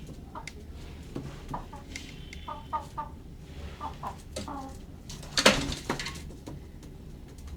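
Chickens clucking in short, repeated calls, often in pairs, followed about five and a half seconds in by a loud, sudden, scratchy noise.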